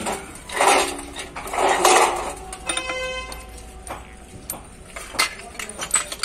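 Steel parts and tools of a truck differential clattering and scraping as they are handled in a metal pan and against the carrier housing: two louder rattles in the first two seconds, then scattered sharp clinks.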